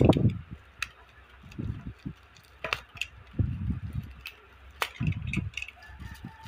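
Clear plastic wrapping being handled and cut open by hand: irregular crinkles and bumps, with a few sharp clicks among them.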